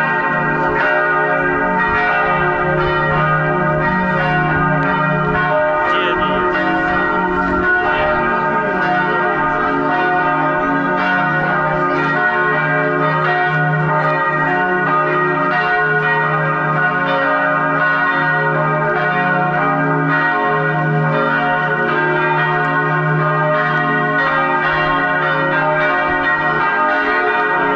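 Lutheran church bells ringing a continuous peal, struck in quick succession so their tones overlap into one steady, dense ring.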